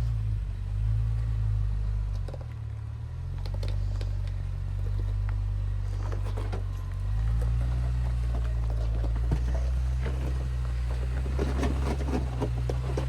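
Off-road 4x4's engine running at low revs as it crawls a rock ledge. It dips briefly about two and a half seconds in and runs a little higher from about seven seconds in. Scattered crunches and knocks, tyres and underbody on rock, come more often near the end.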